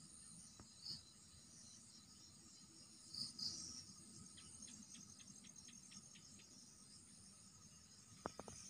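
Crickets and other night insects trilling steadily at a low level, with a couple of brief louder chirps about a second in and about three seconds in.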